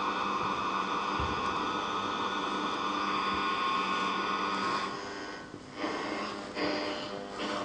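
Performance music: a long sustained chord held for about five seconds, which fades and gives way to another held chord near the end.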